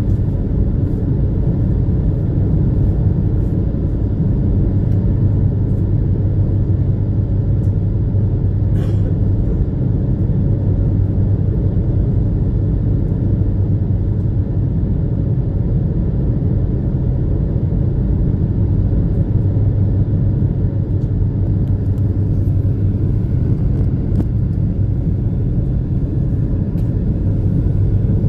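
Steady low rumble of a high-speed passenger ferry's engines running at cruising speed, heard from on board.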